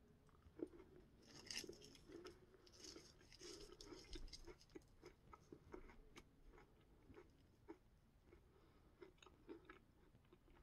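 Faint chewing of a cookies and cream Hershey's Kiss (chocolate with cookie bits), with a few sharper bites in the first few seconds and then small irregular mouth clicks.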